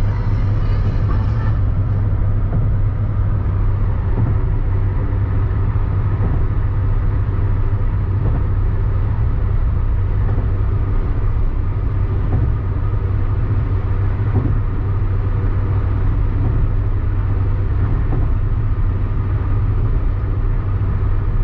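Steady car cabin noise at highway speed: a constant low drone of engine and tyres on the road.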